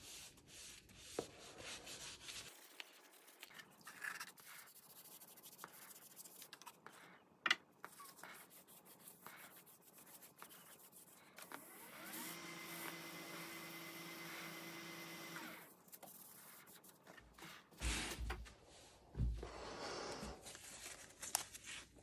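Paper towel rubbing oil finish onto a turned wooden pepper-mill base on a Laguna 15/24 lathe, with small handling clicks. About twelve seconds in the lathe runs with a steady hum for some three seconds, and a few low thumps follow near the end.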